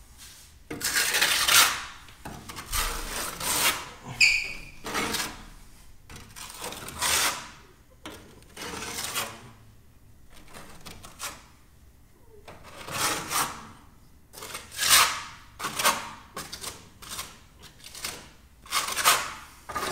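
Mud knife scraping and smoothing wet fireplace mortar across a firebox floor in repeated strokes, with a quieter pause about halfway through. A brief high squeak comes from the blade about four seconds in.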